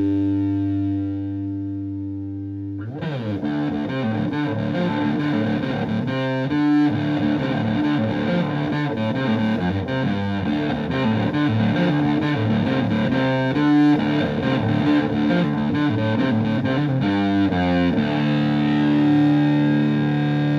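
Electric guitar (Gibson Les Paul in drop D) through a silicon Fuzz Face-style fuzz pedal into a clean amp, giving a thick distorted tone. A held chord rings and fades, then a riff of quick notes runs from about three seconds in, and another chord is held near the end. This is part of a run demonstrating the range of the pedal's bias control.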